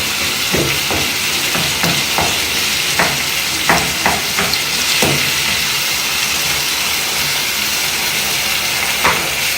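Liver in tomato sauce sizzling steadily in a pan, with a spoon scraping and knocking against the pan several times in the first half and once more near the end as it is stirred.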